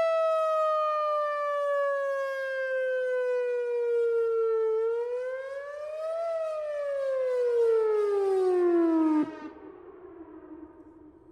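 Whelen Vortex electronic outdoor warning siren sounding a wail for its monthly test. The tone slides slowly down, rises again, then falls lower and cuts off sharply about nine seconds in.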